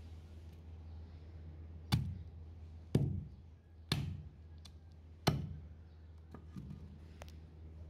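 Heavy meat cleaver chopping into a cow's trotter on a wooden log chopping block: four hard chops about a second apart, then a few lighter taps.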